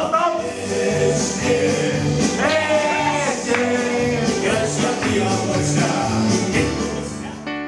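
Background music: an upbeat song with a singing voice over a steady beat, fading out near the end.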